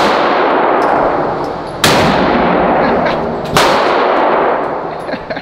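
Three shotgun blasts, about a second and three quarters apart. Each rings out in a long echo in the enclosed indoor range.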